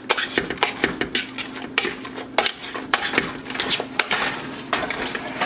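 A utensil knocking and scraping against the inside of a large stainless steel stockpot as mashed potatoes are mixed and mashed to work out the lumps, with quick irregular clanks several times a second.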